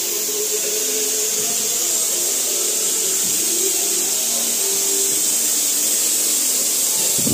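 Compressed-air spray gun hissing steadily as it sprays a coating onto a panel.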